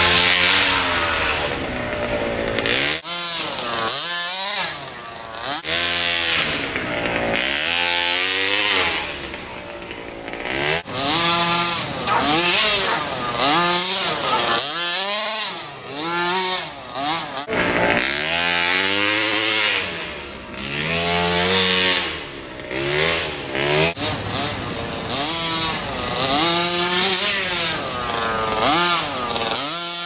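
Small 29cc two-stroke gas engine of a 1/5-scale HPI Baja 5T-style RC truck, revving up and dropping back over and over as the truck is driven hard, its pitch rising and falling every second or two.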